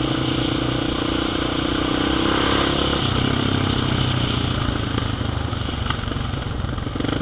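Quad bike (ATV) engine running under way; the revs drop about three seconds in as the rider eases off, then pick back up near the end.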